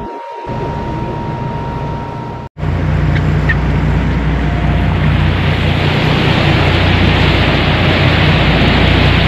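Steady engine hum of a large fishing boat, with wind and water rushing. About two and a half seconds in, the sound cuts out for an instant and comes back louder.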